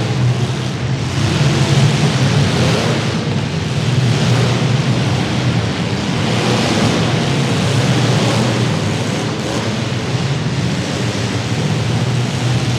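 Several compact demolition-derby cars' engines running hard together, a loud, steady mass of engine noise.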